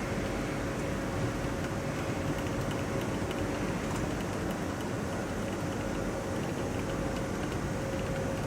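IXION TL 1001 deep-hole drilling machine running steadily: a constant mechanical hum with a steady whine and faint light ticking.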